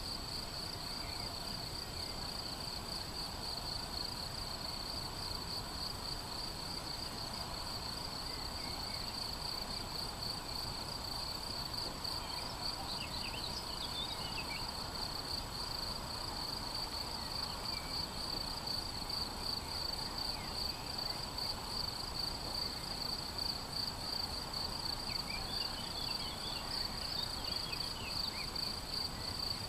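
Crickets chirping steadily in a fast, high-pitched pulsing trill, with a few faint short bird calls about halfway through and again near the end, over a low steady background hiss.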